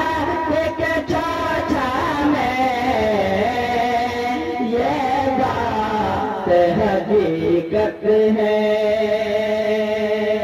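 Two men singing a devotional naat through microphones and a PA, an unmetred melodic line that slides and bends in pitch. From about eight seconds in it settles into one long held note. A steady low tone sounds underneath.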